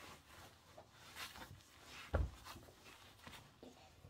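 Soft rubbing and rustling of hands, skin and fabric as a baby is moved about on a padded changing mat, with a dull thump a little over two seconds in.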